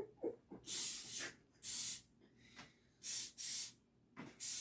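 Flour sifter being shaken over raw chicken pieces, giving a series of short hissing rasps about half a second each, some in quick pairs, with pauses between them.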